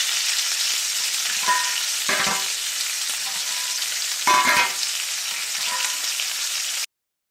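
Sizzling sound effect like food frying in a pan: a steady hiss with a few louder crackles about one and a half, two and four seconds in, cutting off suddenly near the end.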